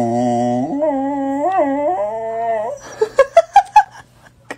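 A small dog howling on cue, its trick of "singing": one long, wavering note, then a quick run of about five short yips rising in pitch about three seconds in.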